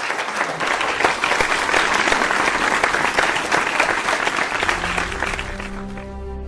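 Audience applauding, a dense clatter of many hands that dies away near the end as music fades in.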